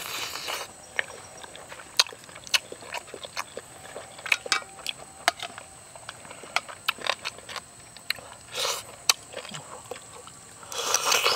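Close-up wet eating sounds: lip smacks and sticky chewing clicks from gnawing soft, gelatinous boiled cow foot, with short slurps of broth at the start, about two-thirds through, and near the end as a spoonful is sipped.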